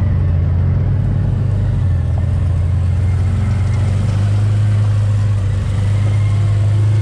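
Side-by-side UTV engine running with a steady low drone, heard from inside the open cab while driving along a trail.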